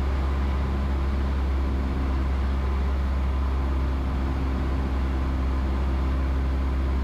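Cessna 172 cabin in flight: the piston engine and propeller drone steadily at an even pitch.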